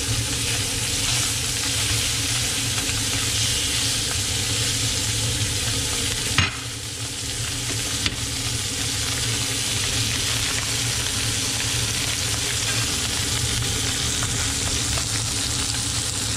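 Blackened red snapper fillets frying in butter in a nonstick pan, sizzling steadily, with one sharp tap about six seconds in.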